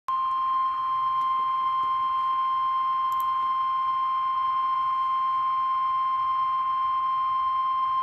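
NOAA Weather Radio's 1050 Hz warning alarm tone from a weather radio receiver: one steady, high beep held without a break. It is the signal that a warning message is about to be read.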